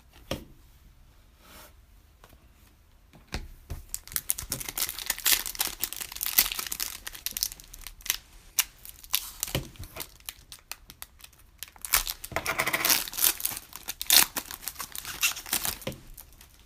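Wrapper of a Panini Prizm retail card pack being torn open and crinkled: a run of crackling rips and crumpling that starts a few seconds in, with two busy stretches.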